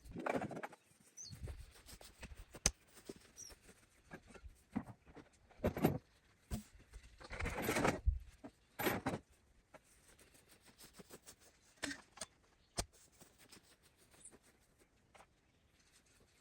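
Irregular knocks, clunks and scuffing of fence posts and tools being unloaded from a utility vehicle, with a few longer scraping or rustling stretches, the loudest about midway through.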